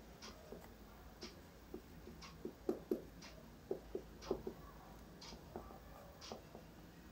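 Dry-erase marker writing on a whiteboard: faint, irregular short squeaks and taps of the pen strokes, a little louder in the middle.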